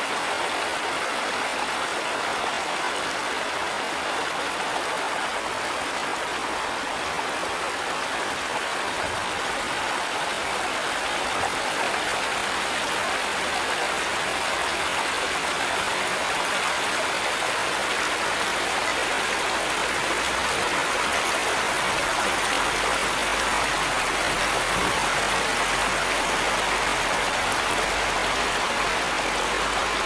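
Small mountain stream rushing and splashing over rocks, a steady, even rush of water.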